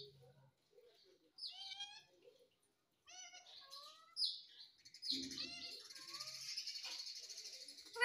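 Indian ringneck parakeet giving a few short, soft chirping calls that bend up and down, then a longer raspy chatter through the second half.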